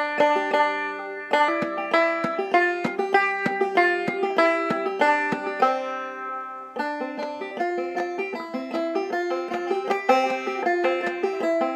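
Five-string banjo played clawhammer style in double C tuning: a quick run of plucked melody notes, breaking off briefly about six and a half seconds in and then starting again.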